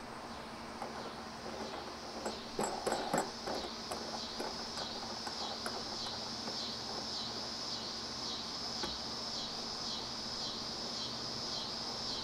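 Insect chorus: a steady high trill that pulses about twice a second. A few light clicks and knocks about two to three seconds in come from the hand working the fitting at the plastic barrel.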